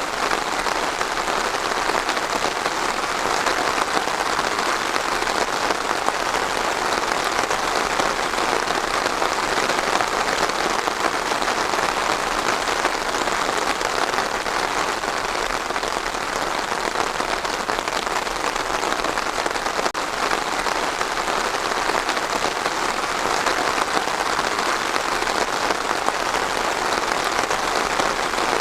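Steady rain falling on a surface, a dense even patter of drops with no change in intensity.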